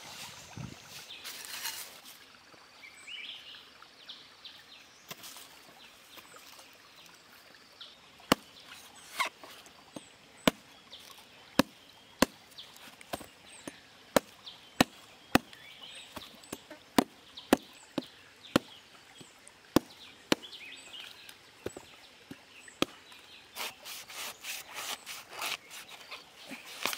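A large knife chopping into the husk of a green coconut: sharp single strikes about one a second, then a quicker run of cuts near the end. Footsteps rustle through dry leaves at first.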